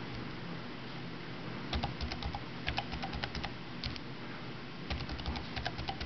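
Keys clicking on an IBM WorkPad z50 mini laptop's keyboard as a password is typed in. The keystrokes come in short, quick bursts with pauses between, starting about two seconds in.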